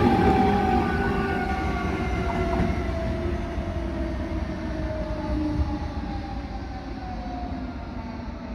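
CP Class 2300 electric multiple unit moving away along the track, its whine of several tones gliding slowly lower over a low rumble as the sound fades.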